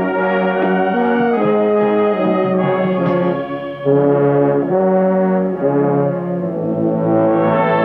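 Wind band of flutes, clarinets, saxophones and trumpets playing a tune in full held chords. The brass is prominent, and there is a short drop in volume a little past halfway.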